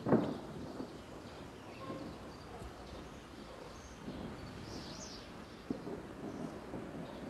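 Outdoor background noise with faint, scattered bird chirps. A brief thump comes right at the start and a short click about six seconds in.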